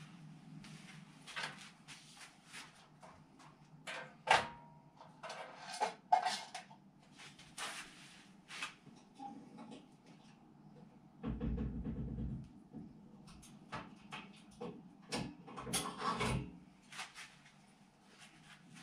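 Scattered knocks, clicks and clatter of tools and metal parts being handled at a workbench, with a low rumble lasting about a second about eleven seconds in and a quick run of knocks near the end.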